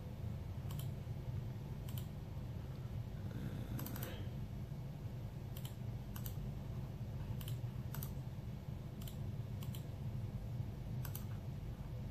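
Computer mouse buttons clicking about a dozen times at an irregular pace, roughly once a second, with two quick clicks close together about four seconds in. A steady low hum runs underneath.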